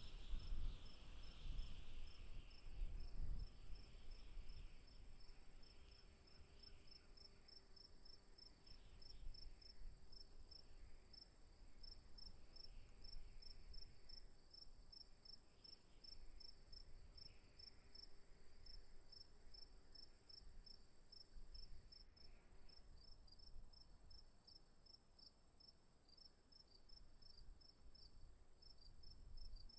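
Faint chorus of crickets: one steady high trill with a rapid pulsed chirping beneath it. There is a low rumble in the first few seconds.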